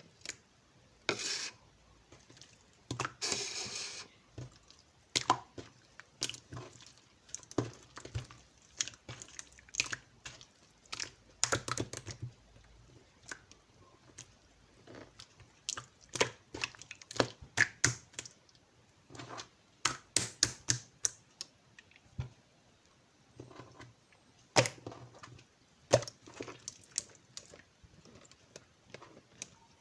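Irregular close-up clicks, taps and short scratchy rustles of small objects being handled, with a few longer rustles about a second in, around three to four seconds in, and near the middle.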